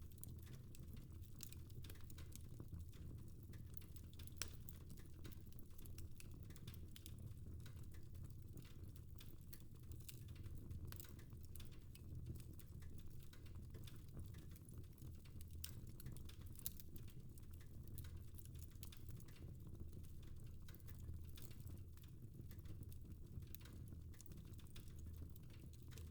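Fireplace fire crackling softly: irregular small pops and snaps over a faint low rumble.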